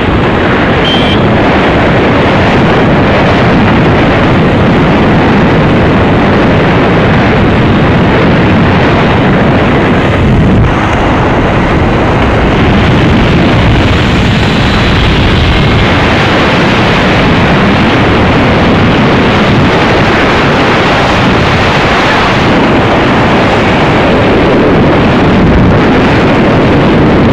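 Loud, steady wind rush on the microphone from a moving vehicle, mixed with road and engine noise.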